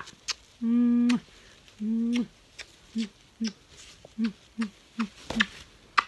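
Kissing between a person and a hyacinth macaw: sharp lip-smacking clicks with low hooting hums. There are two held hums of about half a second each, then a run of short ones roughly every half second.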